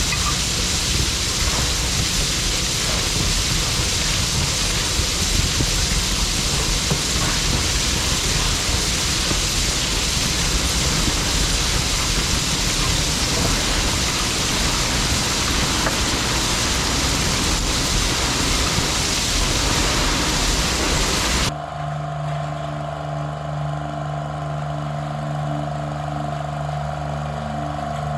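A steady, loud rushing noise with no pitch in it, which cuts off suddenly about 21 seconds in and gives way to an engine idling steadily.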